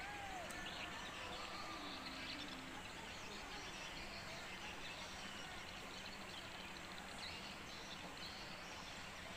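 Steady outdoor background noise with faint bird calls: a few short arching whistles near the start, then scattered faint chirps.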